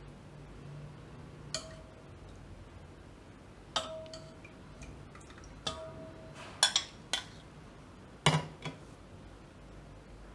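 Steel ladle and stainless-steel dishes clinking as rasgulla are served out of the syrup: about seven separate metallic clinks at uneven intervals, several with a brief ring.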